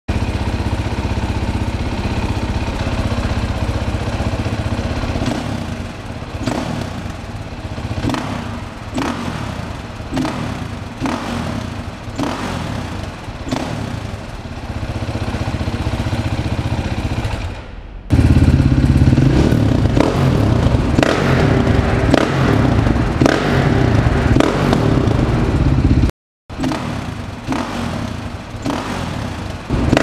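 KTM 530 EXC single-cylinder four-stroke engine with an aftermarket Akrapovic exhaust, running and revved in a concrete underground garage. It idles steadily at first, then gives a run of short sharp exhaust pops about once or twice a second. From about two-thirds of the way through it runs louder with throttle blips, with one brief dropout near the end.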